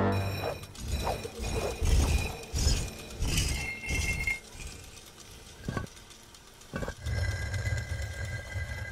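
Cartoon sound effects for living chess pieces on the move: glassy clinks and knocks over a run of low thumps, with two sharp knocks about a second apart midway and a low rumble near the end.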